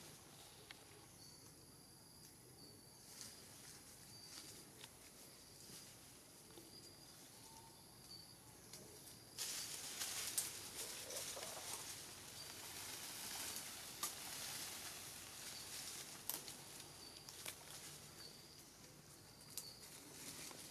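Faint forest ambience in a tree where macaques sit: a thin, high steady tone that comes and goes, with leaves and branches rustling and a few small clicks, louder from about halfway through.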